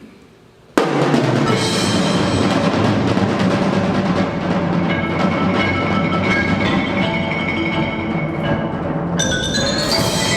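Percussion ensemble playing: after a near-quiet moment the full group comes in suddenly about a second in, with drums and mallet instruments playing dense, continuous music. Bright, high bell-like notes join near the end.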